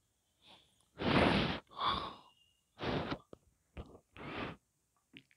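Several breathy huffs, each about half a second long, close to the microphone.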